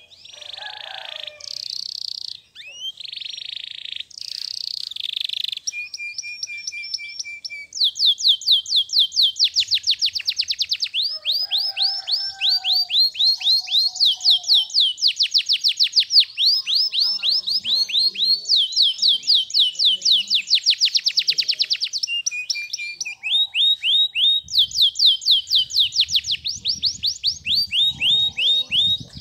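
Domestic canary singing one long, continuous song. It opens with harsh buzzy phrases, then moves into long trills of rapid, repeated downward-sweeping notes at about six a second, each trill at a different pitch.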